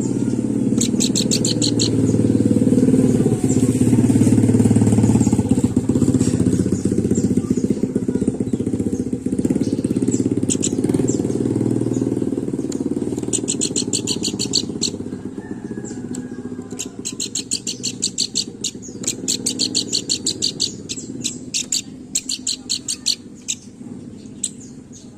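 A pelanduk bukit (babbler) singing in bouts of rapid, evenly repeated high notes, several times, most often in the second half. Under it, a low engine rumble is loudest early on and fades away by about the middle.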